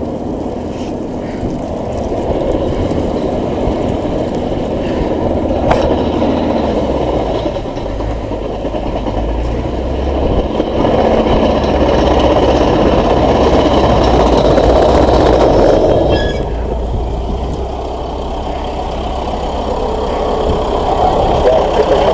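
Steady, rumbling roar of a burning wildfire area, fire and wind noise mixed with vehicle engine noise. It is loudest from about halfway through until a drop around three-quarters of the way, then builds again near the end.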